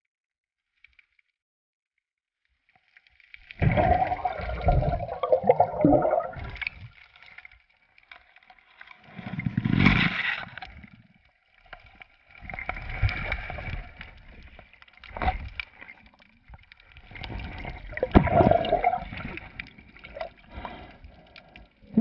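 Water sloshing and gurgling around the diver's camera in surges that come every few seconds, starting about three seconds in.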